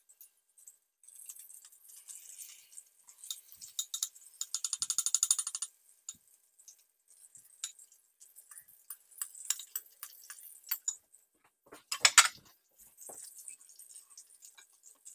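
Cooking utensils clinking and scraping against a frying pan, over a faint sizzle from butter in the pan. About five seconds in comes a rapid run of scraping clicks, and the loudest clatter comes near the end.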